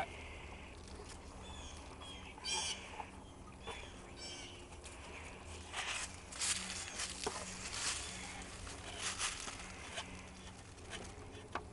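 Small birds chirping a few times, with soft knocks and rustling as a wooden birdhouse is handled and fitted against a wooden fence. A faint steady hum runs underneath.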